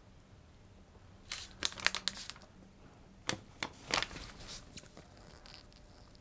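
Plastic wood-glue bottle being squeezed over the boards: two spells of short crackling, sputtering bursts as glue and air push out of the nozzle, with a few sharp clicks about three to four seconds in.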